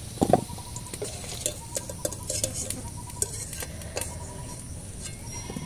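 Wire skimmer lifting fried whole potatoes out of hot oil and tipping them into a steel bowl: a loud thud as a load drops in about a third of a second in, then scattered clinks of skimmer and potatoes against the metal, over a faint sizzle of the frying oil.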